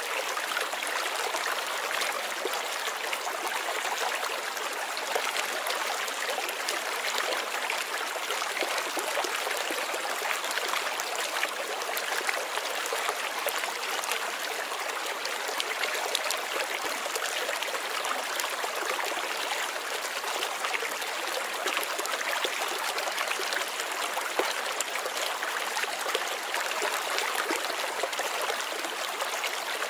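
A small stream or brook babbling and trickling steadily over stones, a continuous, even water sound with fine splashes.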